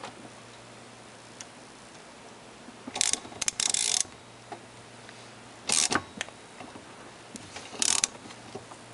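Three short bursts of metal clicking and rattling, about three, six and eight seconds in, as a three-jaw gear puller is worked into place under the drive-end bearing of an electric motor shaft.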